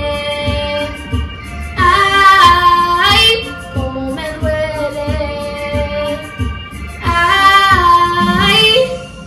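A song with a woman singing over a steady beat; she holds two long, gliding sung notes, one about two seconds in and one about seven seconds in.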